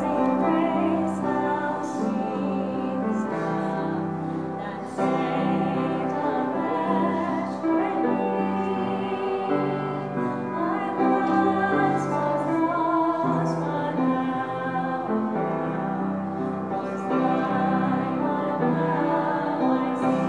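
Upright piano accompanying a sung solo, the voice holding long notes with vibrato over the piano's chords.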